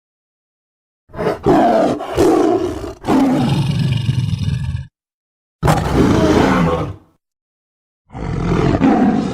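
Sabre-toothed cat (smilodon) roar sound effects: loud, rough big-cat roars and snarls in three bursts, the first about four seconds long, each cut off abruptly with short silences between.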